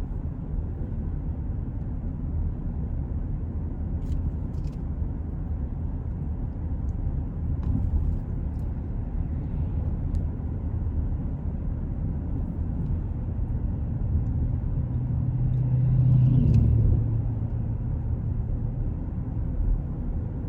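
Car on the move, heard from inside the cabin: a steady low road and engine rumble that swells to its loudest about three-quarters of the way through, with a few faint clicks.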